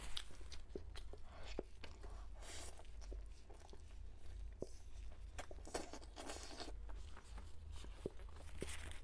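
Close-miked eating: biting and chewing braised pork knuckle meat off the bone, heard as many short, sharp clicks and brief wet noises, over a steady low hum.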